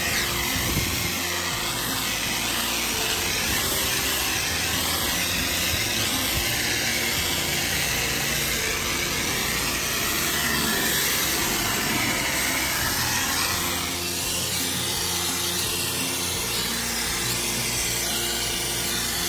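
Pressure washer running and spraying, a steady loud hiss with a faint steady hum beneath; the sound shifts slightly about fourteen seconds in.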